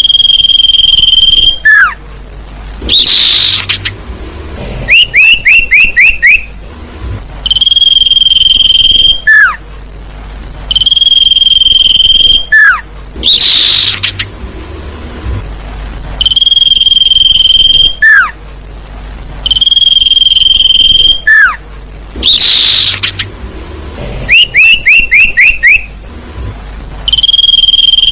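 Bird-trapping lure recording of sirtu calls played loud: long steady whistled notes, a quick run of about five falling chirps, and a short harsh hissing note. The pattern repeats about every ten seconds, with faint insect trilling in the gaps.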